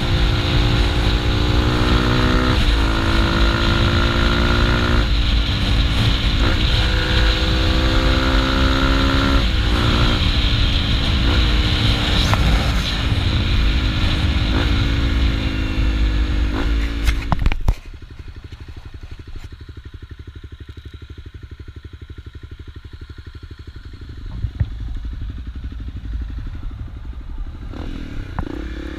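Honda CRF250L's single-cylinder engine at road speed under heavy wind noise on the microphone, its note rising and dropping back several times. About two-thirds in the sound cuts suddenly to a much quieter, even engine beat with little wind, which picks up slightly near the end.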